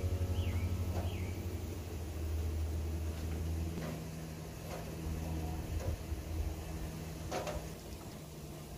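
A few scattered soft knocks and clinks as raw briskets are lifted from an aluminium foil pan and laid on the steel cooking grates of a Lone Star Grills offset smoker, over a low steady hum.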